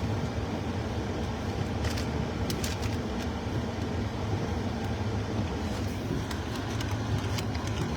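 Steady low rumble of a running motor vehicle, with a few faint, irregular clicks.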